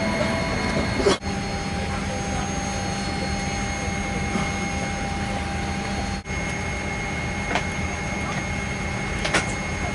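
Steady hum of a Boeing 787-8 airliner cabin with a constant high whine, dropping out briefly about a second in and again around six seconds.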